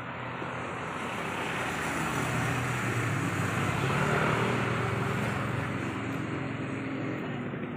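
Road traffic: a vehicle passing on the street, its engine and tyre noise swelling to a peak about four seconds in and then easing off.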